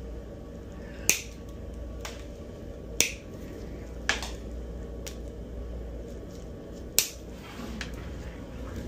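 Steel nail nippers cutting through thick, fungus-thickened toenails: a sharp snap with each cut, four loud ones and a few fainter clicks in between, over a steady low hum.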